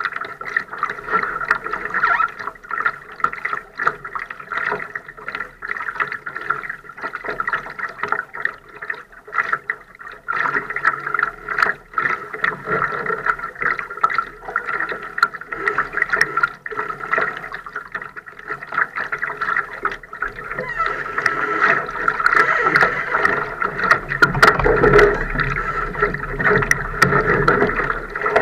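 Water gurgling and lapping against the hull of a Laser sailing dinghy moving in light air, with many small splashes and clicks. It grows louder for the last several seconds.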